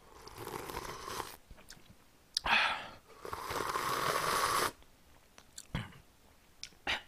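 Slurping and sucking at a ladle of army-stew broth, trying to draw in a piece of ham that won't come off the ladle. There are three noisy slurps, the last and longest lasting over a second, then a few small mouth clicks.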